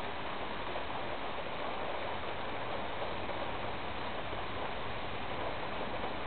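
Steady rain falling in a thunderstorm, an even hiss with no thunder.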